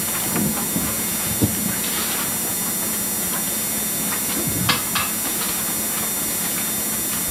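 Steady hiss and hum of an old videotape recording, with a few scattered soft knocks and rustles as hymnals are handled in the church pews.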